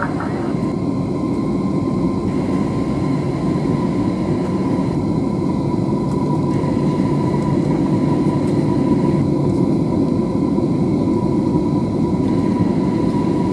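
Steady cabin noise inside an Airbus A320neo descending on approach: a low rush of airflow and engine noise with a thin steady tone above it.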